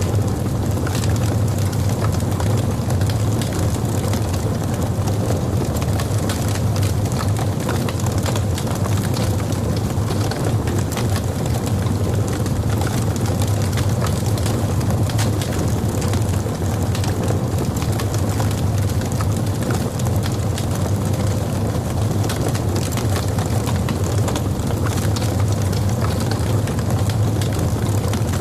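Log fire burning in a fireplace: a steady low rumble of flames with many small crackles and pops scattered throughout.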